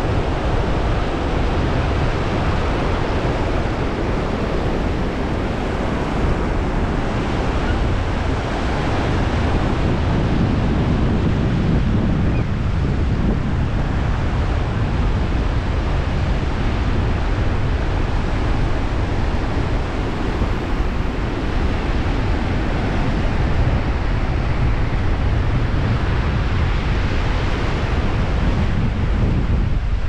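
Ocean surf washing onto the beach, with wind buffeting the microphone; a steady, continuous rush of noise with a heavy low rumble.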